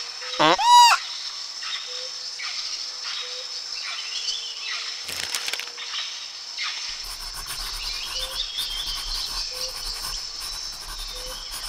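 A loud honking bird call about half a second in, over a steady high hiss of insects. A whoosh comes near the middle, then a pencil scratches on paper through the last few seconds.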